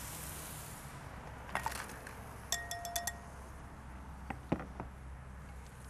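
Utensil tapping against dishware: a run of quick clinks about two and a half seconds in, the first ringing briefly, with lighter clicks and knocks of handling around it.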